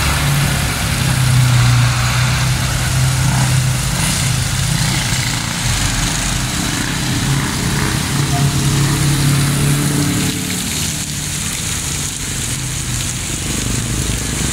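Steady outdoor city ambience: a low engine-like hum under a broad hiss, with faint voices. The hum weakens about ten seconds in.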